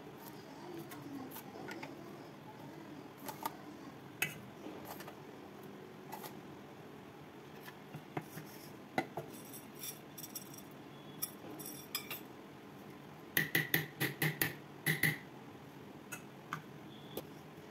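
A metal spoon scraping and clinking against a stainless-steel mixer-grinder jar and steel bowl while thick urad dal batter is scooped out, with scattered light clicks and a quick run of sharp clinks about thirteen seconds in.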